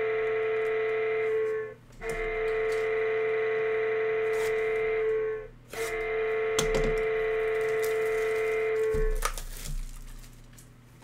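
Three long held musical tones at one steady pitch, each about three and a half seconds, with short gaps between. About nine seconds in they stop and give way to faint rustling and clicks.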